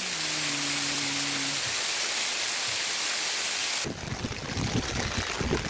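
Steady hiss of snow and sleet falling. About four seconds in it gives way to footsteps through dry grass, with gusts of wind on the microphone.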